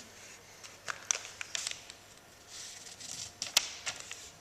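A sheet of paper being folded and creased by hand into a paper aeroplane: scattered short rustles and crackles of the paper, with one sharp crack about three and a half seconds in.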